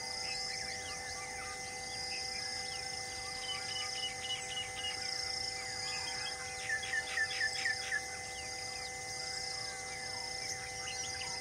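Tropical forest ambience: a steady, pulsing insect drone with birds calling over it, including a run of about five sharp falling chirps about seven seconds in, the loudest sound.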